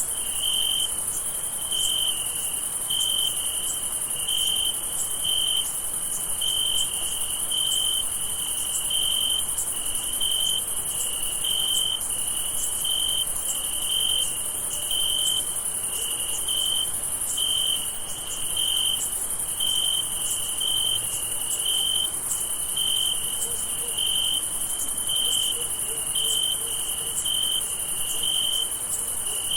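Night chorus of crickets: one chirps in even pulses about once a second, over a continuous high-pitched insect trill.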